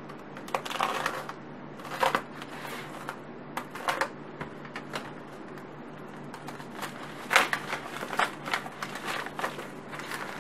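White plastic mailer envelope crinkling and crackling in irregular bursts as hands work it open, loudest about two, four and seven seconds in.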